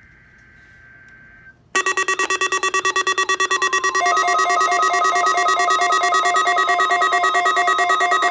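Weather alert radio's warning alarm going off for a weekly test: a faint steady tone, then a sudden loud rapid beeping about two seconds in, joined about two seconds later by a second alarm of alternating high and low beeps.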